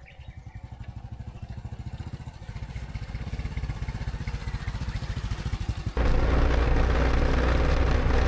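Motorcycle engine running with a rapid, even beat that grows steadily louder. About six seconds in, the sound jumps abruptly to a much louder, dense engine and rushing noise.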